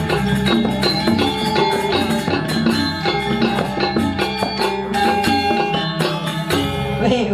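Balinese gamelan playing for the dancers: ringing struck-metal tones carry a melody over quick, frequent percussive strikes.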